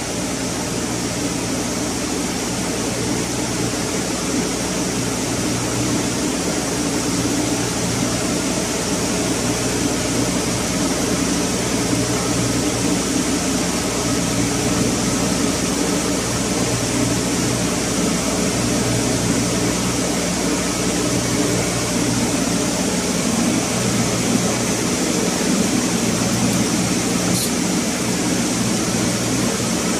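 Steady machinery drone of a running marine inert gas generator plant, a mix of low hum and airy hiss, with a low hum that swells and fades every few seconds.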